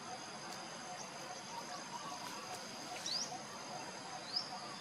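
Steady high-pitched insect drone, with two short, high rising chirps, one about three seconds in and one near the end.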